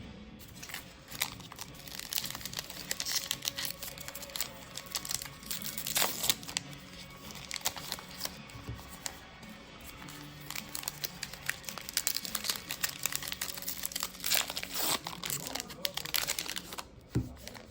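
Trading-card pack wrappers crinkling and tearing as packs are opened, with cards rustling as they are handled.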